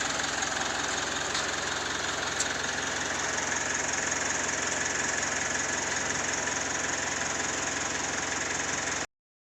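A vehicle engine idling steadily, cutting off abruptly about nine seconds in.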